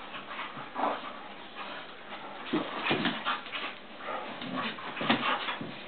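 Two dogs play-fighting, an Old English Sheepdog and a standard poodle, making short dog noises in irregular bursts, the strongest about three seconds in and again about five seconds in.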